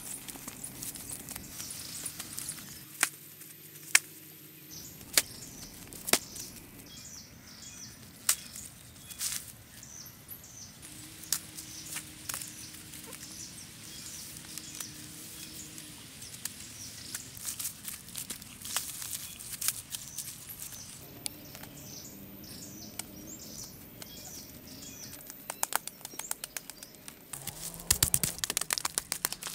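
Wet mud being scooped by hand into woven baskets and pressed onto a wooden stick frame, with scattered sharp knocks and rustles from the work and a flurry of wet slaps near the end. Birds chirp in the background.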